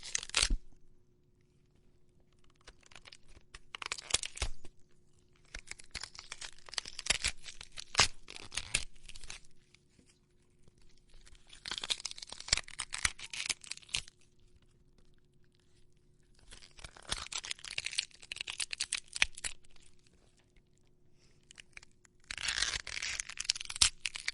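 Crunching, tearing crackles from the broken bottom part of a foley prop being pushed and pulled close to the microphone to make gore sound effects, in five passes of two to three seconds each.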